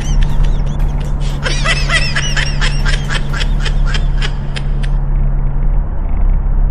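Steady low hum of a car driving, heard from inside the cabin. Over the first five seconds, a high, quick, repeated laugh-like sound plays over it and then stops.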